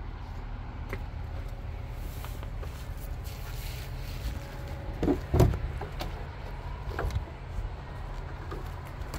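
Steady low rumble from handling and air movement on the microphone, with a few dull thumps, the loudest cluster about five seconds in.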